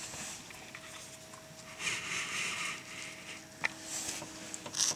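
Faint rustling and a few small clicks over a steady electrical hum.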